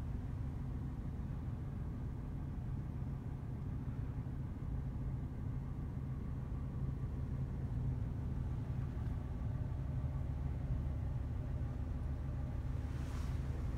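Ford 15-passenger van's engine heard from inside the cabin: a steady low rumble with a constant hum.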